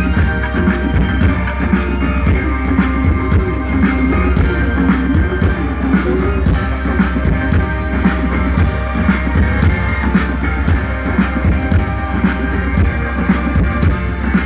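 Live band music: an indie rock song played with a steady drum-kit beat, bass and guitar.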